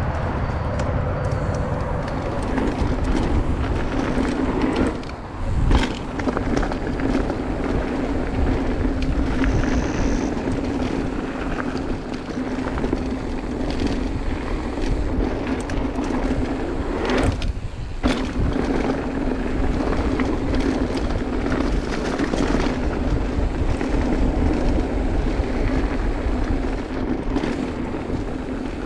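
Mountain bike riding fast down a packed-dirt trail: steady wind rush over the camera microphone mixed with tyre noise on the dirt. The noise drops out briefly about five seconds in, followed by a sharp jolt, and again about seventeen seconds in.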